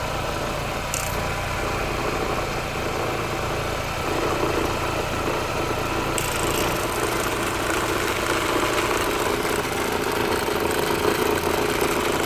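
Ford Fiesta Zetec Rocam engine idling steadily during a test of the valve-cover breather check valve, whose worn internal ball makes a noise easily mistaken for a timing-chain rattle. About four seconds in, a steady humming tone joins the idle.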